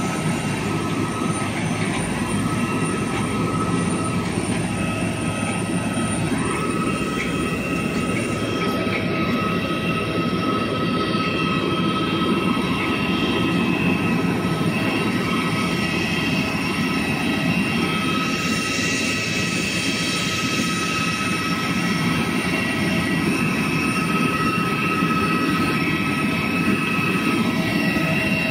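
Steady roar of turbine aircraft on an airport apron, with several high whining tones held level over it throughout.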